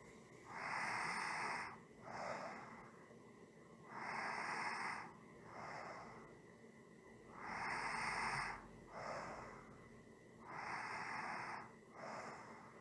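A person breathing slowly and evenly, four times: each breath is a longer draw followed by a shorter one, about every three seconds.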